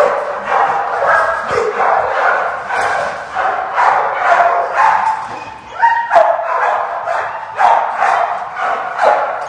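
Many shelter dogs barking in their kennels, overlapping barks coming about two a second without a break.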